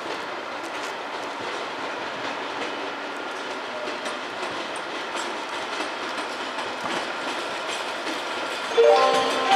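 TGV Réseau high-speed trainset passing along the station tracks: a steady rolling noise with wheel clicks over the rail joints. Near the end a set of ringing tones begins.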